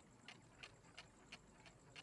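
Faint, steady ticking of a clock, about three ticks a second.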